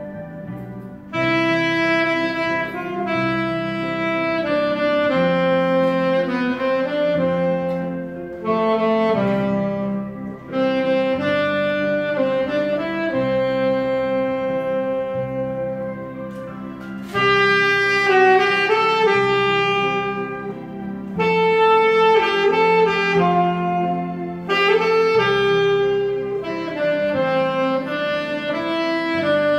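Alto saxophone playing a slow melody in long held notes, phrase by phrase with short breaths between, over a sustained chordal accompaniment.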